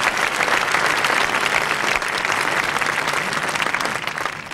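Concert audience applauding steadily, starting to thin out near the end.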